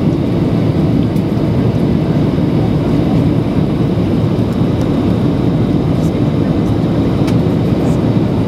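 Boeing 737-800 in flight on approach: a steady low rumble of engines and rushing air.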